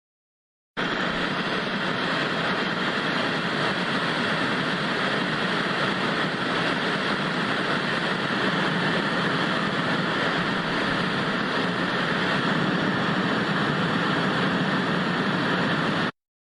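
Analog TV static, a steady even hiss. It starts suddenly about a second in and cuts off abruptly just before the end.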